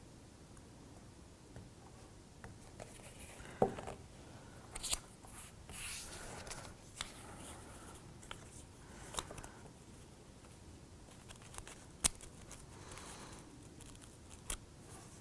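Faint handling of vellum sheet and small laser-cut wooden kit pieces: a few sharp clicks and taps as parts are picked up and set down, with brief paper rustles around six and thirteen seconds in.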